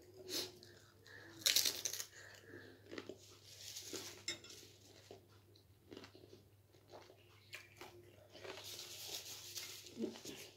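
Close-up eating sounds of crunchy snacks: crunching and rustling with sharp clicks and light clinks, loudest about a second and a half in and again near the end.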